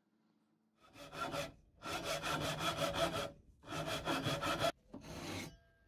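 Handsaw cutting through a turned ash handle blank in four runs of quick back-and-forth strokes, starting about a second in.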